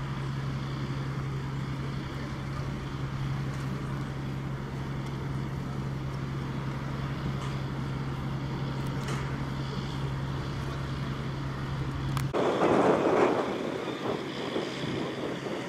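A vehicle engine running steadily with a low, even hum, which stops abruptly about twelve seconds in; a louder rushing noise follows for a second or two.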